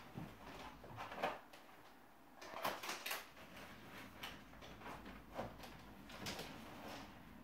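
Scattered knocks and clatters of someone rummaging at a kitchen counter, moving things about; the sharpest knock comes about a second in, with a bunch of clatters around three seconds in.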